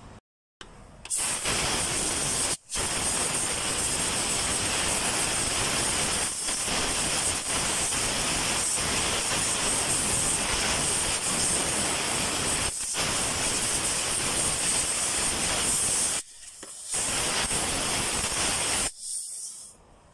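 Compressed-air blow gun hissing in long blasts over the fuel pump's lock ring on the fuel tank. It starts about a second in, cuts out briefly soon after, stops around sixteen seconds, then gives one more short blast.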